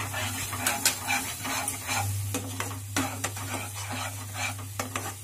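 Steel spatula stirring a thick, wet semolina mixture in a nonstick pan, with irregular scrapes and knocks against the pan as it is worked, over a steady low hum.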